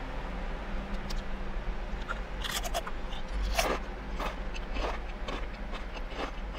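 Crunchy Sun Chips garden salsa multigrain chips being chewed close to the microphone. A crisp crunch comes with each chew, about twice a second, starting about two and a half seconds in.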